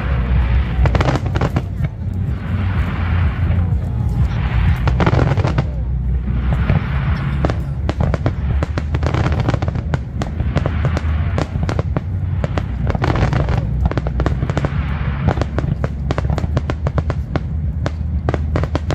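Aerial display fireworks bursting, with a long run of bangs and crackles that grows denser from about halfway through, over music playing underneath.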